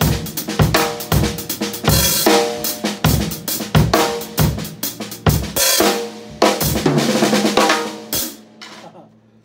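Drum kit groove played on snare, bass drum and a pair of Zildjian ZBT hi-hats, budget sheet-bronze cymbals. The playing stops about eight seconds in and the last stroke rings away.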